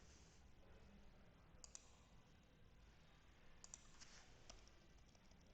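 Faint computer mouse clicks: a quick double click under two seconds in, another near the middle, then a couple of single clicks, over low room hiss.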